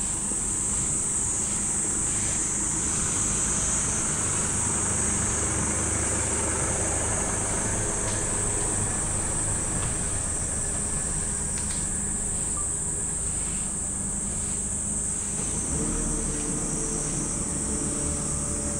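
Steady high-pitched insect buzzing over the low steady hum of a truck engine running.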